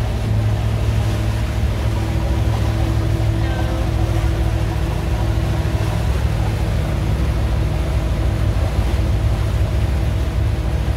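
Motorboat engine running at a steady speed under way, a low, even hum, with the rush of water from the wake.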